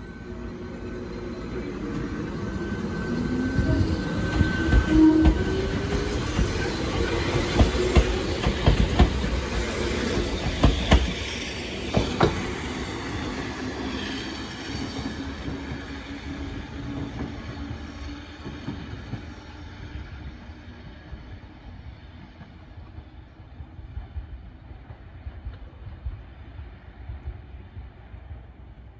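Sangi Railway 101 series electric train (ex-Seibu 401 series) pulling away from the station: its motor whine rises as it accelerates and its wheels clack over the rail joints. The sound then fades steadily as the train draws away down the line.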